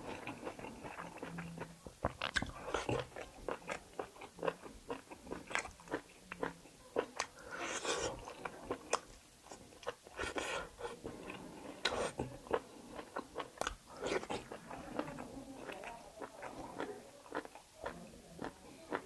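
Close-miked eating of kalij pheasant curry meat off the bone: biting and chewing, with many irregular short clicks and crunches.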